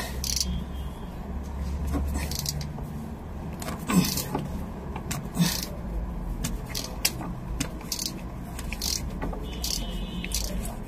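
Scattered metallic clicks and knocks of tools working on a tight engine oil filter as it is forced loose, with two louder knocks about four and five and a half seconds in.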